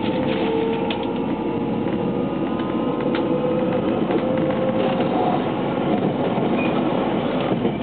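Running sound inside a JR West 683 series 2000-subseries electric train: the Toshiba IGBT VVVF inverter and traction motors whine in two tones that rise slowly as the train gathers speed, over a steady rumble of wheels on rail with a few light clicks.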